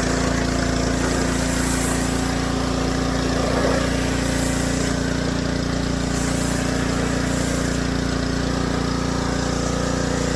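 Small engine of a pressure washer running at a steady speed.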